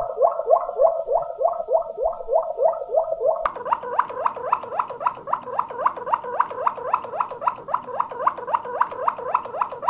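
Waterslager canary singing the klokkende tour: a fast, even run of short rising notes, about five a second. About a third of the way in, the notes shift higher.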